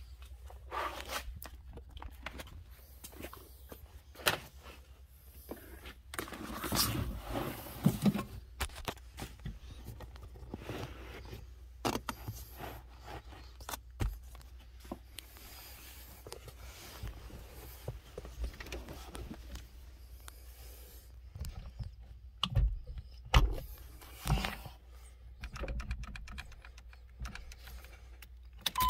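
Handling noises: a rubber floor mat rustling and scraping as it is laid into a truck's footwell, with scattered clicks and knocks and a few sharper knocks in the last third.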